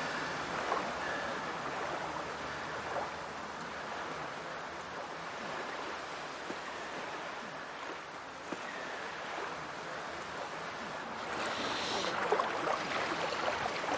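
Steady rushing outdoor background noise of wind and water at a shore, swelling a little near the end.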